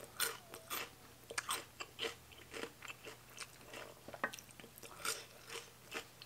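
Close-miked chewing of a mouthful of food, with crisp crunching bites and wet mouth clicks at an uneven pace of about two to three a second.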